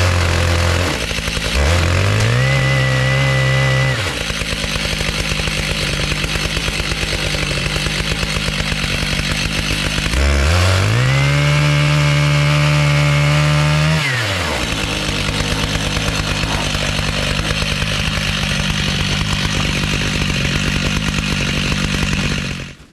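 Stihl MS 881 two-stroke chainsaw in an Alaskan chainsaw mill, running throughout: twice it rises to a steady high pitch at full throttle and drops back, once briefly about two seconds in and again for about three seconds near the middle, running at a steadier lower note in between. The sound cuts off suddenly at the very end.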